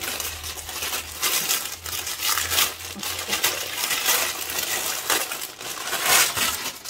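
Glossy plastic packaging bag crinkling as it is handled and pulled open, an irregular run of crackles with sharp peaks.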